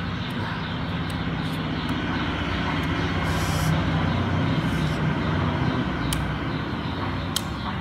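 A motor engine running steadily with a continuous low rumble, swelling slightly midway. There are two sharp clicks near the end.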